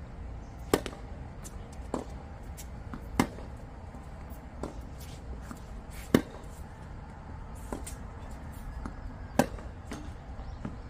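Tennis ball struck by rackets and bouncing on a hard court during a rally: sharp pops about every second or so, starting with a serve, the loudest just past halfway from the near player's forehand.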